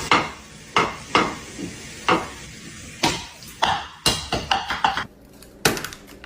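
A run of about ten sharp knocks at irregular intervals, each with a short ringing tail, with a longer gap near the end.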